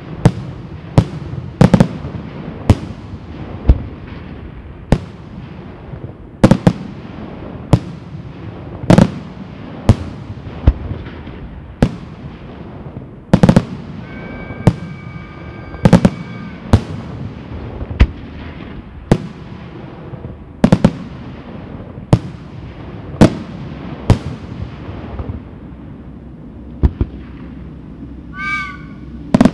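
Aerial firework shells bursting in a steady run of sharp bangs, about one or two a second. A held whistle sounds over them in the middle, and a short warbling whistle near the end.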